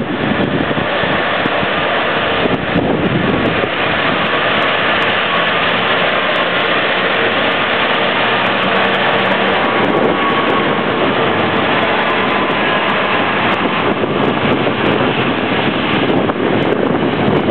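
Freightliner Class 66 diesel-electric locomotive running under power as it approaches and passes, its two-stroke EMD V12 engine loud and steady, then tank and container wagons rolling by on the rails.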